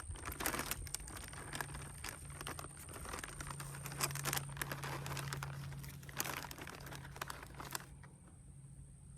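Plastic snack bag crinkling and rustling as it is torn open and handled, in irregular crackles that die away about three quarters of the way through.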